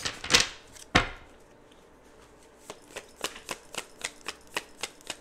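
Tarot cards being shuffled by hand: two sharp knocks in the first second, then after a short pause a run of light card clicks, about four a second.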